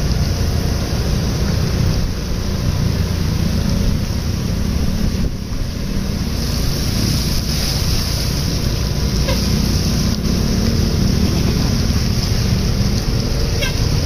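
Steady low engine rumble from a large coach bus driving slowly close by, mixed with the engines of motorbikes beside it.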